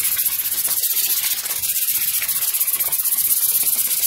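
Hand-held abrasive sanding pad rubbing against a turning Kawasaki alloy motorcycle wheel rim: a steady, loud, scratchy hiss as the corrosion is sanded off.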